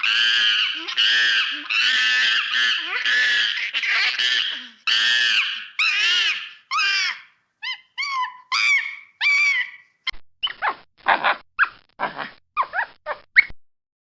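Monkeys screaming: a run of loud, shrill calls, nearly two a second, then shorter squeaks that rise and fall, then a quick string of short clicks and chirps near the end.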